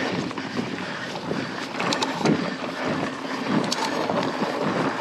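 Mountain bike rolling over a dirt trail on 2.4-inch Bontrager XR4 tyres: a steady rough tyre-and-trail noise with wind buffeting the microphone. A few sharp clacks from the bike over bumps about two seconds in and again near the end.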